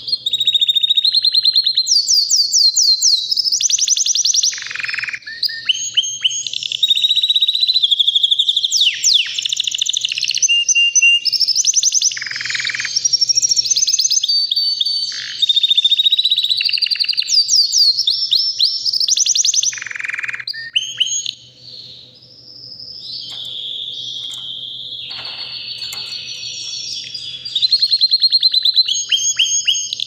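White domestic canary singing a long, near-unbroken song of rapid trills, rolls and whistled notes. After a brief pause about two-thirds of the way through, it holds a long steady note, then breaks into fast trills again.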